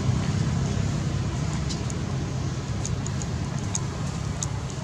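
Steady low rumble of road traffic or a motor running nearby, fading a little toward the end, with faint short high chirps scattered through it.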